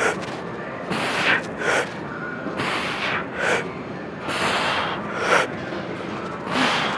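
A man breathing forcefully under the effort of a set of incline dumbbell presses. He takes short, sharp breaths in and out, roughly one every half second to second, with a couple of longer exhales in the middle.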